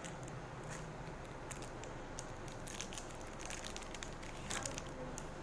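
Clear plastic sleeve crinkling and clicking as the card inside it is handled and opened, in scattered soft crackles, with a few sharper ones near the middle and about four and a half seconds in.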